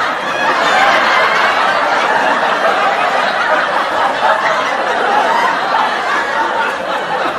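Crowd of many people talking and laughing at once, a steady babble of voices.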